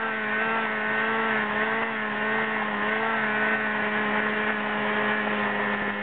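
Snowmobile engine running at a steady speed while the sled travels over a bare dirt road, heard from the rider's seat. Its pitch wavers slightly up and down.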